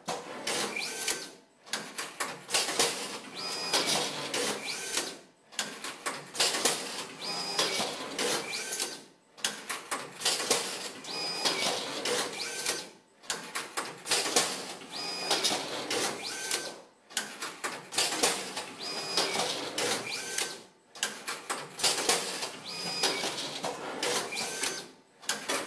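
BUSCH ZFB 32/75 R feed bander running through repeated banding cycles as stacks of cut paper are fed in and banded. Each cycle is a clatter of clicks and mechanism noise with short whines, repeating about every four seconds with a brief pause between.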